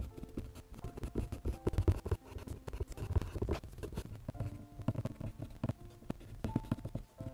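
Prismacolor colored pencil scratching on drawing paper in quick, irregular short strokes. Background music of held notes at changing pitches plays underneath.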